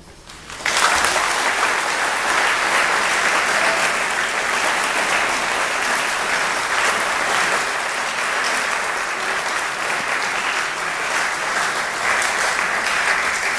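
Church congregation applauding, the clapping breaking out suddenly under a second in and going on loud and steady.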